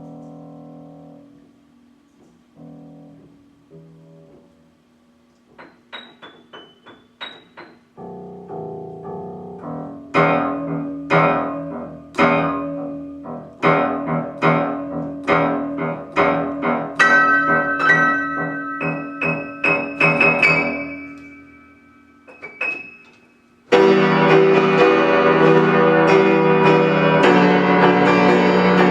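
Piano being played: a few soft chords, some very high short notes, then a run of struck notes that ring and die away. About five seconds before the end it switches abruptly to loud, dense chords held at a steady level.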